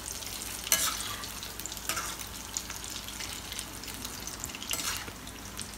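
Battered green chillies deep-frying in hot oil in a kadhai: a steady bubbling hiss, with a few louder crackles about a second in, at two seconds and near the end.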